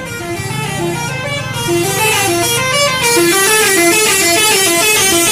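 Telolet basuri musical bus horn playing a melody of short stepped notes that jump up and down in pitch, getting louder about two seconds in.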